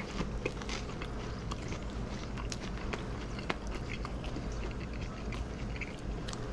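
A person chewing a bite of a hamburger fatty melt sandwich, with many small, irregular clicks scattered throughout.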